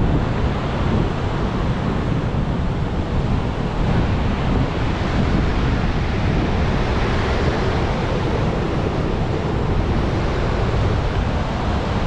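Steady rushing roar of a large waterfall's falling water, with wind buffeting the microphone.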